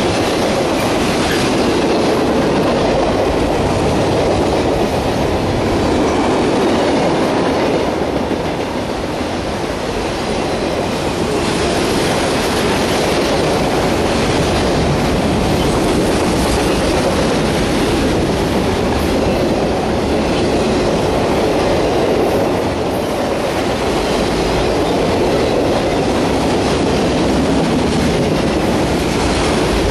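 Freight train cars, loaded flatcars and then autorack cars, rolling past close by: a steady, loud running noise of steel wheels on rail that eases slightly about eight to ten seconds in.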